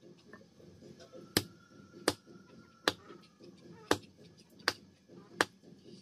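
Knife chopping through chicken meat and bone into a wooden log chopping block: six sharp chops, about one every three-quarters of a second, starting about a second in.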